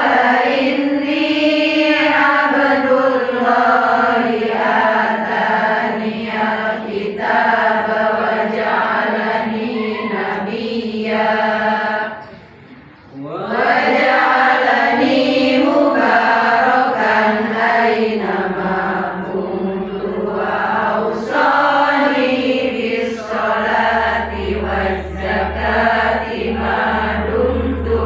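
Qur'an recitation chanted by a single reciter in long melodic phrases, with a breath pause near the middle. A steady low hum comes in about two-thirds of the way through.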